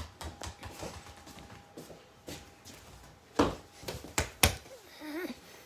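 A ball bouncing on a hard floor: a sharp thud about three and a half seconds in, then two more in quick succession near four and a half seconds, with faint light taps between.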